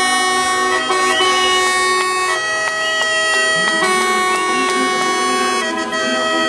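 Truck air horns blown in long held notes, several pitches sounding together and shifting to new notes every second or so, like a drone, over low engine rumble.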